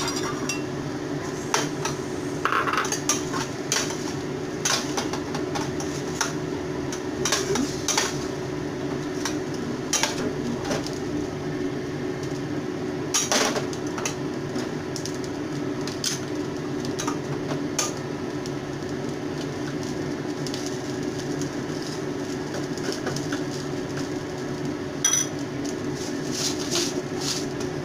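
A metal cooking utensil clinking and scraping against a pot while stirring vegetables, in scattered knocks over a steady low hum.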